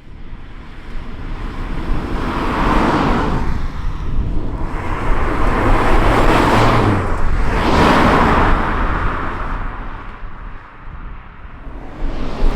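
2025 Volkswagen Golf R's turbocharged 2.0-litre four-cylinder engine and exhaust heard as the car passes by. The sound swells and fades in about three waves, loudest in the middle.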